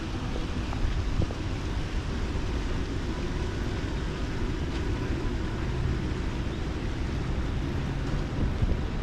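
Steady low rumble of distant city traffic: outdoor street ambience with no single sound standing out.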